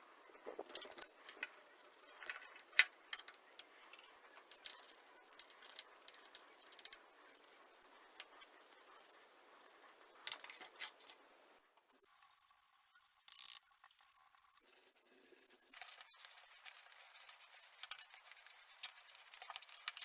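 Scattered small clicks, taps and scrapes of hand work on small hard parts, with abrupt changes in the sound around twelve seconds in.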